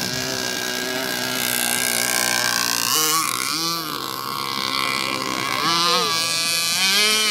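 The 30cc Zenoah two-stroke petrol engine of an RC boat running, its pitch dipping and rising as the throttle is worked, about three seconds in and again near the end.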